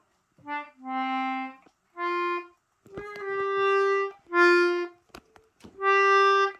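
McNeela Phoenix Anglo concertina played haltingly by a beginner: about six separate reedy notes, each held for half a second to a second with short pauses between, as the bellows are pressed and pulled.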